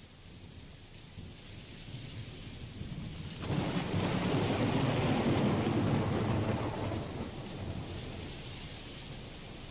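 Steady rain with a long roll of thunder that swells about three and a half seconds in and slowly fades.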